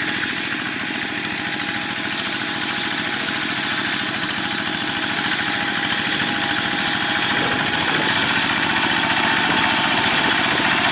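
Old Kubota diesel engine of a Quick G1000 hand tractor running steadily with rapid, even firing pulses, growing slightly louder toward the end.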